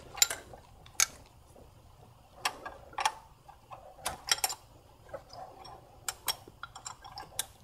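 Irregular light clicks and taps of engine-bay parts being handled as a connector bracket is positioned on a VW/Audi 2.0T TSI engine.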